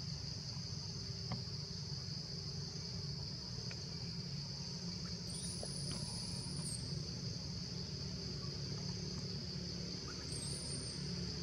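Steady, high-pitched chorus of insects, with a higher insect buzz joining in twice, about five seconds in for a second and a half and again briefly near the end, over a steady low rumble.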